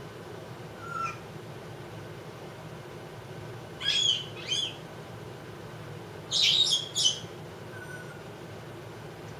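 Congo African grey parrot calling: a short faint falling whistle about a second in, two loud calls around four seconds in, and a louder cluster of harsh, noisy calls near the seven-second mark.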